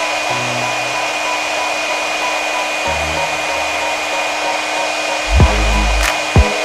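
Hot-air heat gun blowing steadily, a constant hiss with a thin high whine. Background music plays underneath, its bass and beat getting heavier near the end.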